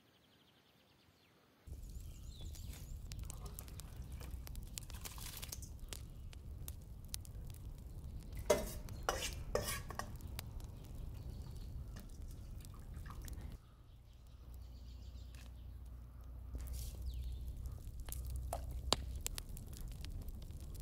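Aluminium cooking pots and a metal ladle clinking and knocking, with a few louder ringing clanks about halfway through, over a steady low rumble. The first second and a half is near silence.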